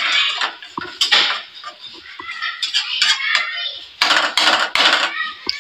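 A spoon scraping and knocking against a metal karahi as chicken tikka in thick masala is stirred. The scrapes come in repeated strokes, the heaviest run about four seconds in.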